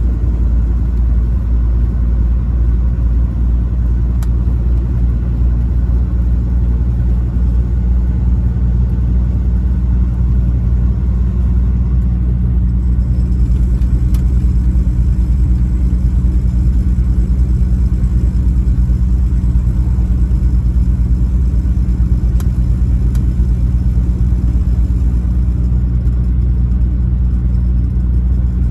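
Truck engine running steadily while driving: a low, even drone.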